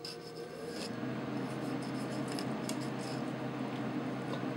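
Fillet knife scraping and cutting along a silver carp's rib bones as the flesh is worked off them. It makes a steady rasping with faint small clicks and gets louder about a second in.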